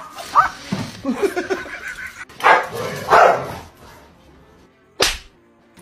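A dog barking in a quick run of short, high yipping barks in the first second and a half, followed by two louder harsh noises and, near the end, a single sharp knock.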